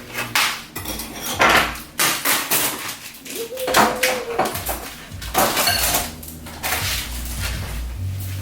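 Kitchen clatter: dishes and utensils knocking and clinking on a counter as a bowl and ingredients are handled, a string of separate sharp knocks at uneven intervals.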